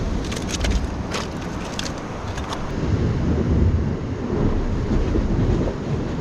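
Wind buffeting the microphone over surf on a rocky shore, a steady low rumble that swells midway. A quick series of sharp clicks sounds in the first couple of seconds.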